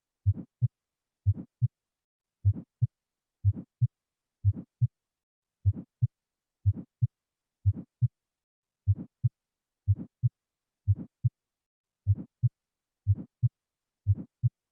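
Heart sounds from an auscultation recording: paired first and second heart sounds (lub-dub), the first stronger, repeating about once a second in a steady rhythm.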